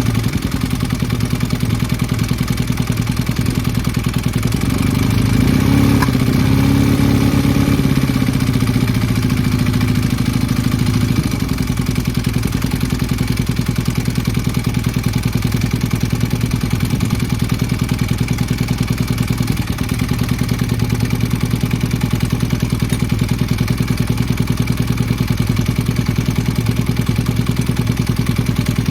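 Honda CB250T Hawk's air-cooled parallel-twin engine running at idle with an abnormal engine noise. It is revved briefly about five seconds in, then falls back to a steady idle.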